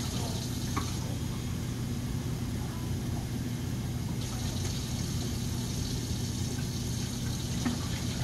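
Tap water running steadily into a film developing tank, rinsing the developer out before the fixer goes in, over a steady low hum. The stream's hiss grows brighter about halfway through.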